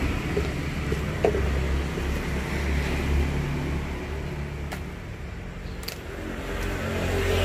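Steady low engine hum, with a couple of faint clicks about five and six seconds in.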